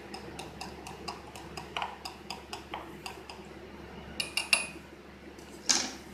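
A stirrer clinking against the inside of a glass bowl while salt is stirred into water: a steady run of light ticks, about two or three a second, then a few sharper ringing clinks and one louder knock near the end.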